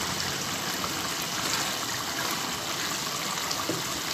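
Radish and spinach boiling hard in their cooking liquid in a pan: a steady bubbling hiss with small pops, as the water is cooked off.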